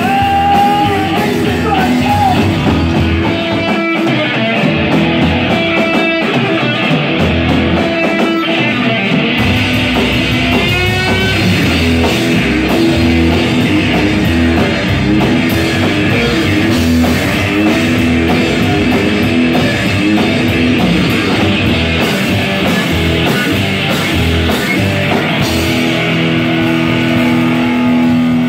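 Live rock-and-roll band playing without vocals: electric guitar, upright double bass and drum kit. The first several seconds are broken up, with short gaps between hits; about nine seconds in, the full band comes in and plays on.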